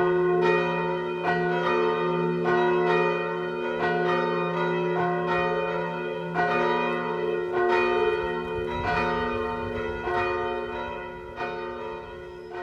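Church bells ringing, a stroke a little under once a second, each tone ringing on between strokes; the ringing fades away near the end.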